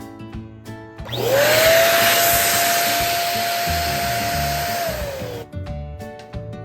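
Electric balloon pump running for about four seconds, blowing air into a balloon: a rushing blast with a motor whine that climbs quickly as it starts, holds steady, and drops away as it is switched off.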